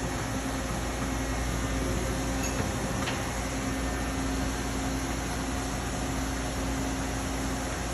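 Steady mechanical hum and hiss of running shop machinery, with one faint click about three seconds in.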